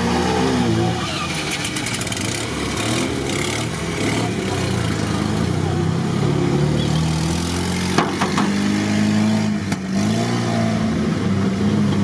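Off-road cars' engines revving as they drive through deep mud and water, the pitch rising and falling as the drivers work the throttle. There is a sharp knock about eight seconds in.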